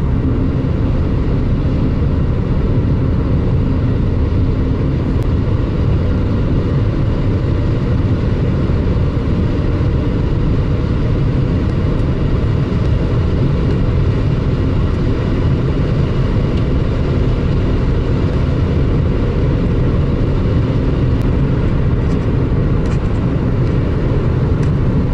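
Lada Granta's four-cylinder engine running steadily at about 3,500 rpm with its Jatco JF414E automatic in fourth (overdrive) gear, heard from inside the cabin. The driven front wheels are spinning freely off the ground on blocks, so the engine holds a constant, even note.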